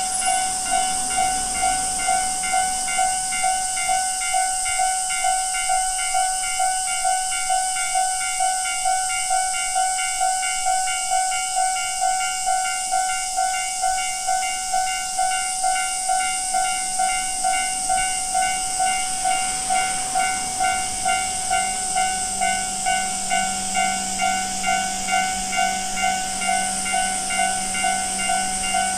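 Japanese railway level crossing alarm ringing its electronic standard tone, an even ding-ding about twice a second; the uploader finds this ordinary tone somehow strange. A low steady drone joins about twenty seconds in.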